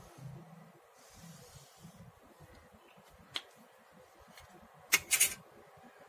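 A felt-tip marker drawing faintly along a clear plastic ruler on thin silky fabric. A little over three seconds in comes a single light click as the marker is set down. About five seconds in, a short, louder double rustle and scrape follows as the ruler is slid off the fabric.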